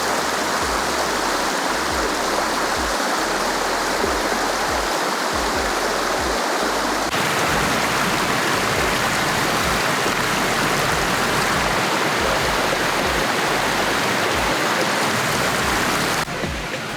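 Waterfall water rushing loudly and steadily. Its tone changes abruptly about seven seconds in and again just before the end.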